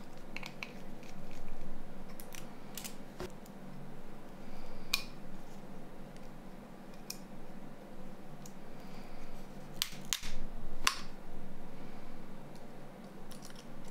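Small clicks and taps of a Nokia N93's metal frame and plastic parts being handled and fitted together by hand, irregular and sparse, with a few sharper clicks about ten seconds in.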